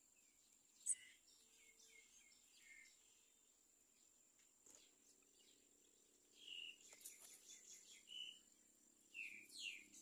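Myna nestlings giving short begging calls: a faint run of them from about a second in, then louder calls from about six seconds in, with rising calls near the end.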